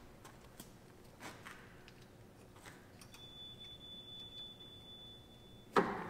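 Quiet handling noises, small clicks and shuffling, while the Jeep TJ's JKS quick-disconnect sway-bar links are worked by hand. Near the end comes a single sharp clunk that rings in the concrete garage. A faint, thin, steady high tone runs through the second half.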